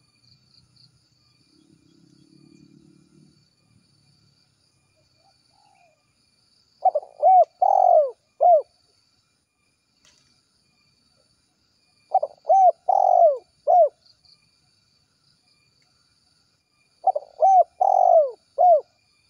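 Spotted dove cooing: three phrases about five seconds apart, each of four notes, two short, one longer, then a short closing note.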